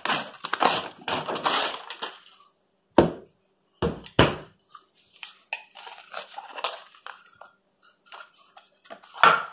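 A refrigerated cinnamon-roll dough can being opened and its cardboard tube pulled apart: the paper wrapper rustles and tears and the cardboard crinkles. Sharp knocks come about three and four seconds in, and another near the end.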